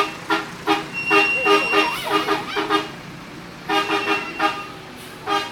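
Telolet horn, a multi-tone musical air horn, sounding in quick runs of short beeps, about four to a run, with a pause about three seconds in before another run and a final beep near the end.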